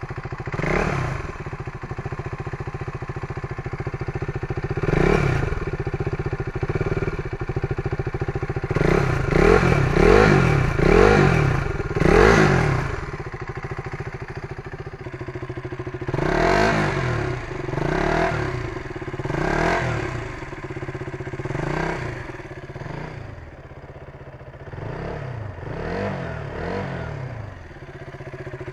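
KTM Duke single-cylinder motorcycle engine idling and revved in a dozen or so short throttle blips, each rising and falling in pitch.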